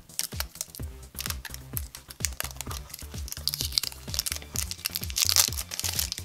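Background music with a steady beat, over which a small plastic toy capsule and its plastic wrapper crinkle and click as they are peeled and pulled open by hand, most densely about five seconds in.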